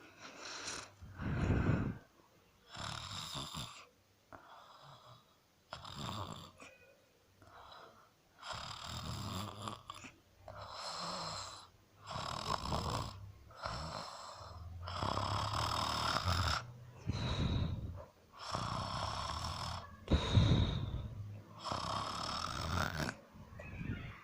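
Snoring: a run of rasping snores, roughly one every second or two, with short pauses between them. Some carry a thin high whistle.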